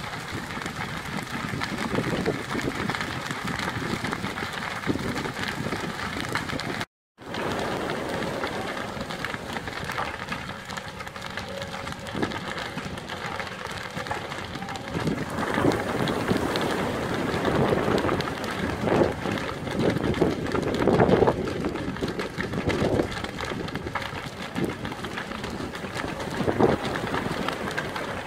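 A large building fire burning: a steady roar with dense crackling, and heavier rumbles and pops in the second half. The sound cuts out completely for a moment about a quarter of the way in.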